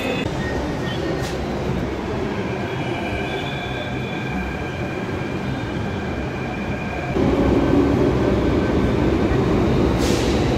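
Delhi Metro train at an elevated station platform: steady running noise with a high, even whine, growing louder about seven seconds in.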